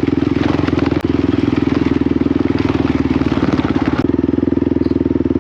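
Off-road vehicle engine running steadily as it drives over bumpy ground, with scattered knocks and rattles from the rough ride.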